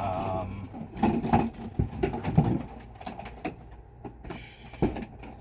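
Clicks and knocks of plastic vacuum hose grip and wand parts being handled, with a short wavering tone right at the start.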